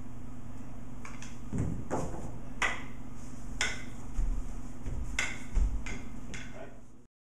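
Rattan training sticks clacking and knocking against each other and the floor: about ten sharp, irregularly spaced clacks, with a few dull thumps on the mat, over a steady low electrical hum.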